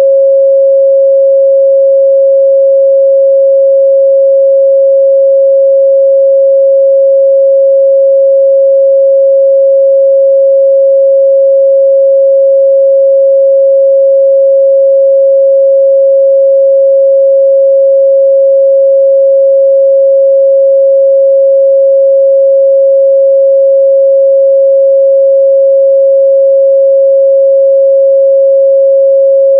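Steady 545 Hz sine-wave test tone, a single pure pitch held at constant loudness.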